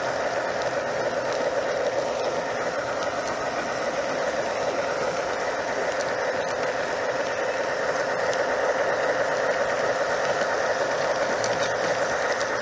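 Garden-railway model freight train running slowly, heard from aboard: a steady mechanical whir and rattle of the drive gears and wheels rolling on the track.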